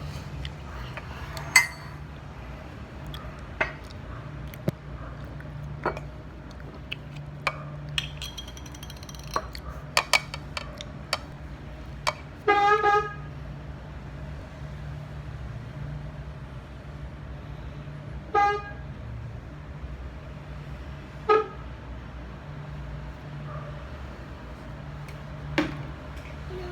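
A car horn gives short toots: a longer one about halfway through and two brief ones later, over a steady low rumble like a running vehicle, with scattered small clicks and taps.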